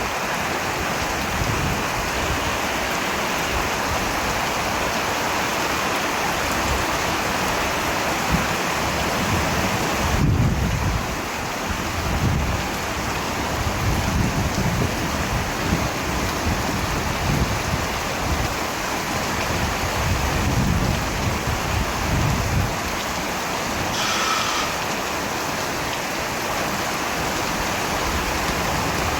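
Steady rain falling, with low rolling thunder rumbling now and then, strongest about ten seconds in. A brief high-pitched tone sounds a few seconds before the end.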